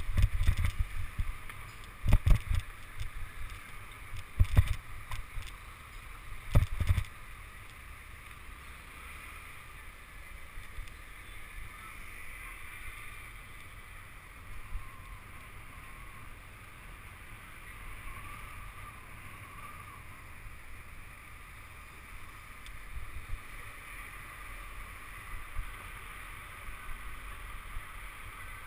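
Wind and road rumble on a bicycle-mounted camera's microphone while riding on city streets. Four heavy low jolts come in the first seven seconds, about two seconds apart; after that the rumble is steadier and quieter.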